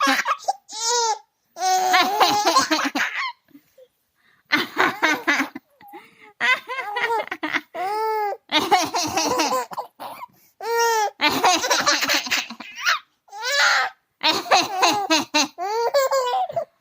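A baby laughing hard in repeated bursts with short breaks between them, laughing at her mother's fake coughs.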